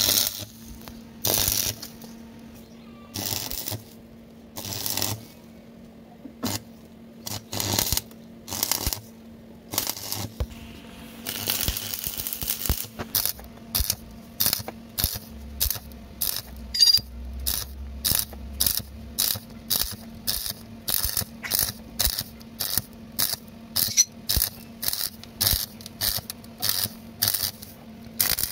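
Stick (arc) welder crackling in bursts as short stitch welds are laid on a scooter's steel chassis rail: spaced bursts of about a second at first, then quick short bursts at about two a second from around halfway. A steady low hum runs underneath.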